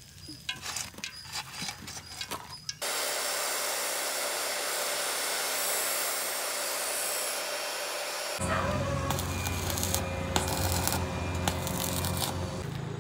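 Abrasive cut-off saw wheel grinding a steel rod to a point, a steady hiss that starts abruptly after a few seconds of scattered light clicks. Past the middle it switches suddenly to an arc welder crackling over a steady low hum as spear prongs are welded on.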